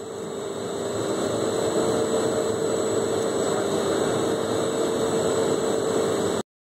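Tote mixer's drive running steadily, a hum with a thin high whine over it, cutting off suddenly near the end.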